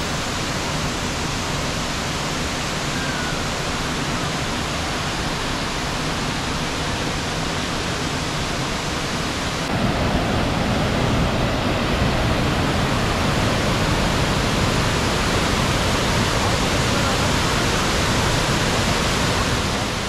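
Steady rushing of the Rajdari waterfall, a wide cascade pouring over stepped rock ledges. About ten seconds in it becomes louder and deeper.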